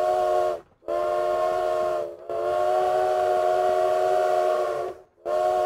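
Locomotive chime steam whistle blowing a series of blasts, each sounding several notes at once as a chord: a short blast, a longer one, a long one held for nearly three seconds, then another blast starting near the end.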